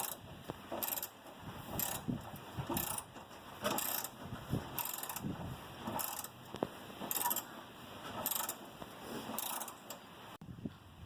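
Socket ratchet wrench clicking in repeated strokes, about one a second, as a shock-absorber bolt is cranked round by hand.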